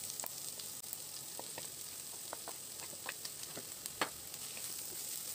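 Prawns, onion and green chilli frying in a nonstick pan, sizzling steadily as grated carrot is tipped in and stirred with a wooden spatula; small scrapes and clicks of the spatula, with a sharper click about four seconds in.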